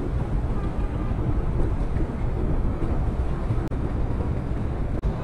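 Steady low rumbling noise with no clear pitch, heaviest in the bass and fluctuating slightly.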